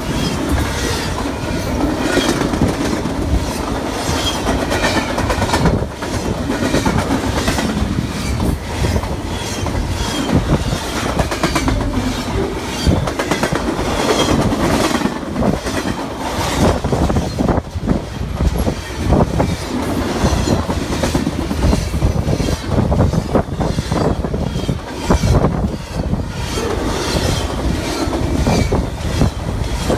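BNSF double-stack intermodal well cars passing close by at speed: a loud, steady rush of steel wheels on rail with a rapid clickety-clack of wheels striking rail joints.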